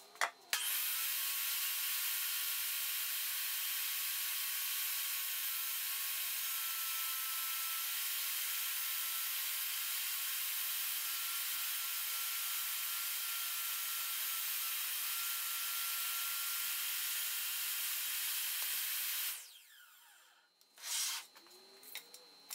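DeWalt jobsite table saw ripping through a sheet of plywood: a steady, hissing whine of motor and blade cutting that starts suddenly and stops suddenly near the end, followed by a few light knocks.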